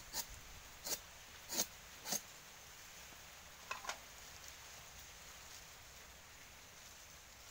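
A nipa sap-tapping knife slicing the cut end of a nipa palm flower stalk: four quick cuts about two-thirds of a second apart, then two softer clicks. Shaving the cut end like this reopens the wound so the sap keeps flowing.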